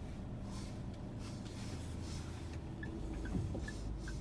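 Car running at low speed, a steady low engine and road rumble. From about three seconds in, a faint run of evenly spaced high ticks alternates slightly in pitch, a little more than two a second.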